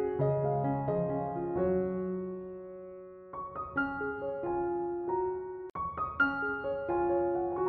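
Background music: a piano playing soft chords and a slow melody, each note struck and left to fade.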